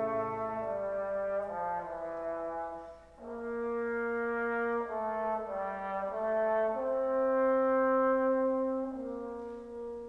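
Classical brass music played back through Eosone RSF-1000 four-way loudspeakers: horns and trombones hold slow chords, with a brief break about three seconds in, and the last chord dies away at the end.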